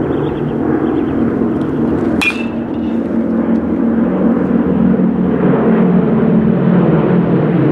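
A metal baseball bat hitting a ball once, about two seconds in: a sharp crack with a short high ping. It sits over a loud, steady rush of noise.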